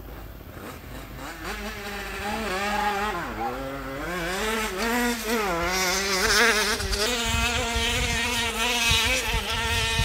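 Small two-stroke engine of a vintage moped revving under load, growing louder as it approaches. Its pitch rises and dips several times, then holds steady through the last few seconds.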